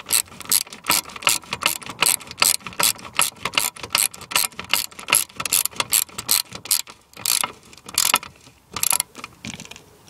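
Hand socket ratchet clicking as it is swung back and forth to tighten the rear lower control arm bolt: a steady run of sharp clicks, about four a second, with short pauses near the end.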